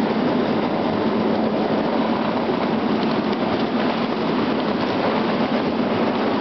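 Ride-on miniature railway train running along the track, its cars' wheels making a steady noise on the rails.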